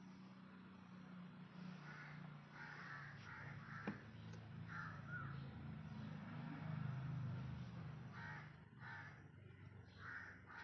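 Faint harsh bird calls, repeated several times in short groups, over a low steady hum, with a single sharp click about four seconds in.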